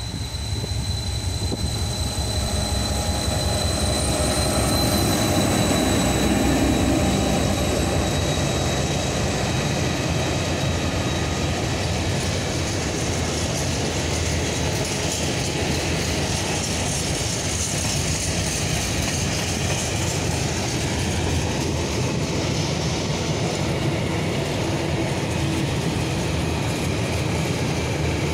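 TEM2 diesel locomotive passing, followed by a long rake of open freight wagons rolling by with a steady rumble of wheels on rails. A high steady whine fades after the first several seconds. The sound is loudest as the locomotive goes past.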